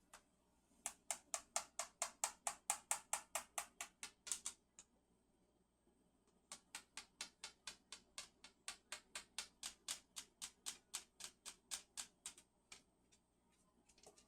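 A cockatoo tapping its beak rapidly on the plastic of a broken humidifier, about four to five quick knocks a second, in two long runs with a pause of about two seconds between them.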